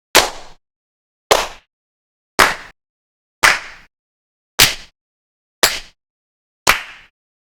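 Single hand claps, one about every second, seven in all. Each is a sharp crack with a short fading tail, separated by silence.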